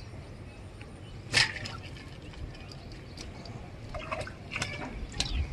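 A hooked tilapia splashing at the water's surface near the bank: one loud sharp splash about a second in, then a run of smaller splashes near the end.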